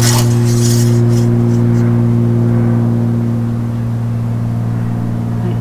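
A steady, loud mechanical hum with one low base tone and a few even overtones, holding unchanged and easing slightly toward the end. A brief rustling hiss sits over it in the first second or so.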